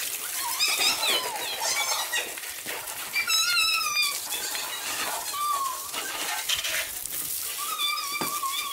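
Birds chirping in short, repeated warbling calls over the steady hiss of water spraying from a garden hose onto a motorcycle.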